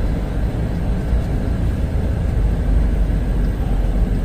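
Semi truck's diesel engine running steadily at low speed, a continuous low rumble.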